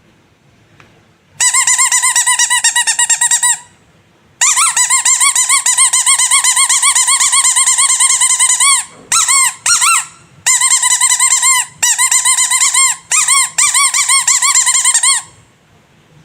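Rubber squeaky toy squeezed over and over: long runs of high, rapidly wavering squeaks, broken by short pauses and a few short single squeaks near the middle.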